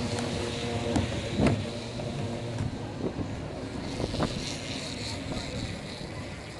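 Roller coaster train running along its track, heard from on board: a steady rumble with wind on the microphone and several sharp clacks and rattles from the car.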